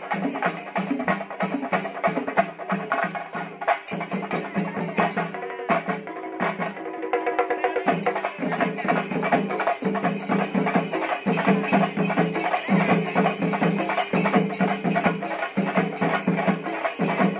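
Shinkari melam ensemble playing: chenda drums beaten rapidly with sticks in a driving, repeating rhythm, with hand cymbals ringing over them. The drumming thins briefly about six seconds in, then comes back at full drive.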